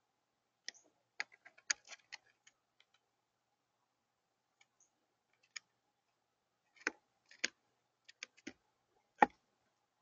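Crow's beak pecking and tapping at seed and peanuts on a feeder table: sharp, irregular clicks in two clusters, the loudest single tap near the end as it picks up a peanut.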